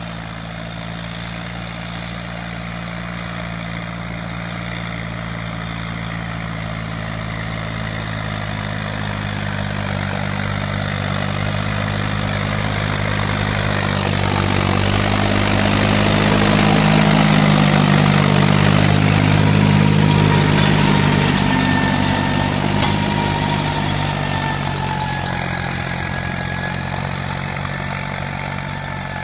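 Deutz-Fahr Agromaxx 60 diesel tractor running steadily while pulling a working rotary tiller through dry orchard soil. The engine and the tiller's churning grow louder as the tractor approaches, are loudest as it passes about two-thirds of the way in, then fade as it moves away.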